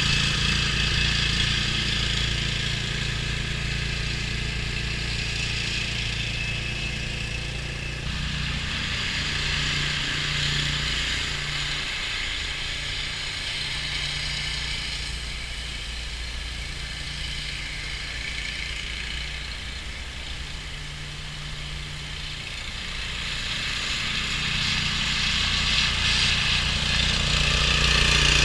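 2006 Ford F250's 6.0 Powerstroke diesel engine running as the truck drives off across the lot and comes back. The engine fades in the middle and grows louder again as the truck returns close by near the end.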